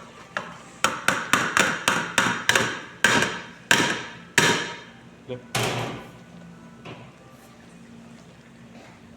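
A metal utensil knocking against a cooking pot while parboiled basmati rice is scooped and layered over cooked chicken for dum biryani: about a dozen sharp knocks in quick succession, one more a little later, then it goes quiet.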